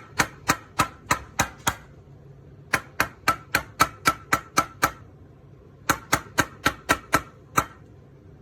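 Sharp knocks in three quick runs, about three a second, each knock with a slight ring, with short pauses between the runs.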